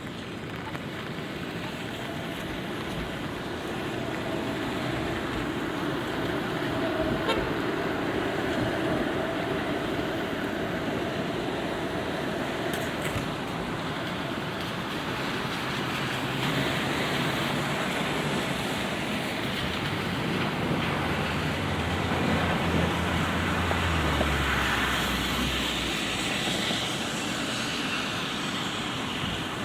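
City street traffic in light rain: vehicles passing on wet road over a steady rain hiss, with a low engine hum from a passing vehicle about two-thirds of the way through.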